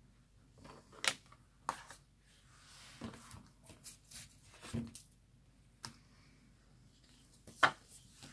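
Scattered light taps, clicks and rustles of craft materials being handled: a silicone mat laid over a metal plate and a sheet of paper placed on a plastic foiling platform, with the sharpest tap near the end.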